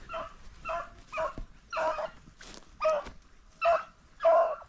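Beagle hound yelping in a run of short, high cries, about two a second: a beagle giving tongue while running a rabbit.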